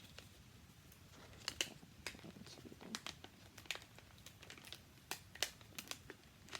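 Envelope and packaging crinkling and rustling in short, irregular crackles as it is handled and opened to get at the stickers.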